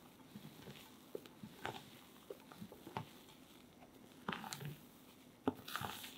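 Spatula folding sifted flour into whipped egg sponge batter in a glass bowl: soft wet squelches and light scrapes against the glass, repeated stroke after stroke, with a couple of louder strokes in the last two seconds.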